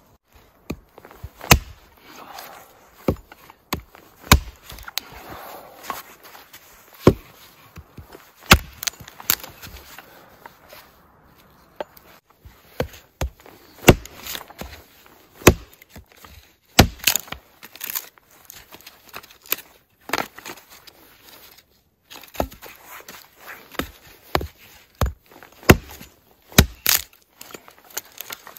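Hatchet splitting a short log into firewood, a series of sharp wooden strikes about a second apart with a short break about halfway through.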